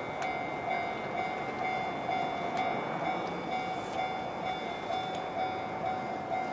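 Japanese railway level-crossing alarm ringing its repeating electronic bell, about two rings a second, over the rushing noise of a train running through the crossing.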